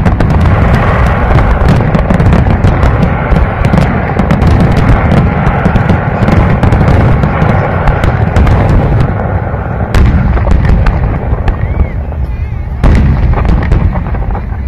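Fireworks display: a dense, unbroken barrage of loud booms and crackling reports.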